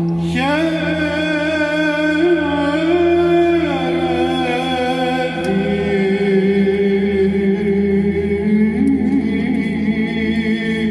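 Male choir singing Byzantine chant a cappella: a steady low drone held throughout under a melody that enters just after the start and moves in steps above it.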